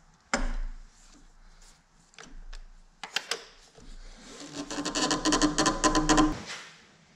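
Long-handled socket wrench working the 2JZ's stuck 24 mm crank pulley bolt, with the crank held by the serpentine belt wrapped around the pulleys: a sharp metal clank soon after the start, a few knocks about three seconds in, then about two seconds of rapid mechanical clicking that stops suddenly.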